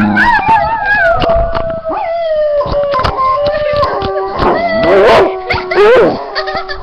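Dog howling in long, wavering notes that slide up and down in pitch, loudest near the end, with a few short knocks in between.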